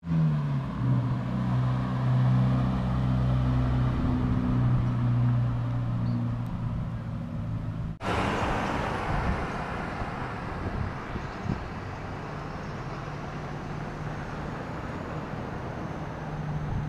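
Street traffic: a vehicle engine running with a steady low drone. After a cut about halfway through, wind rumbles on the microphone over faint traffic.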